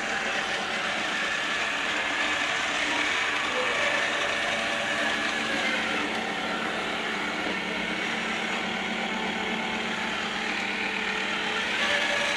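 iClebo Andante robot vacuum cleaner running: a steady whir with a constant low hum and several steady higher whines.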